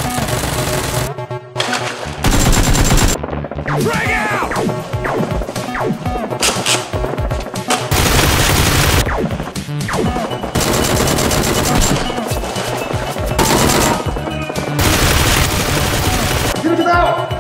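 Repeated bursts of rapid automatic gunfire, each lasting a second or two with short breaks between, as in a staged gun battle.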